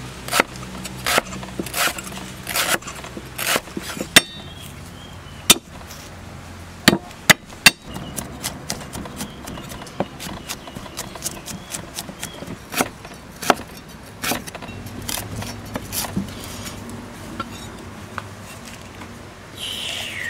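A cleaver chopping lemongrass and garlic on a thick wooden chopping block, each stroke a sharp knock of the blade into the wood. The strokes are evenly spaced at first, about one a second. A few loud single chops follow, then quicker, lighter ones.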